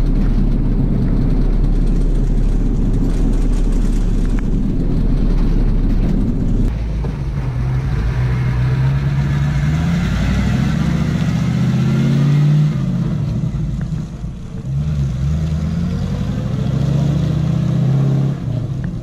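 Motor vehicle engine running loud and steady, then revving up and down with rising and falling pitch from about seven seconds in as the vehicle drives, easing off near the end.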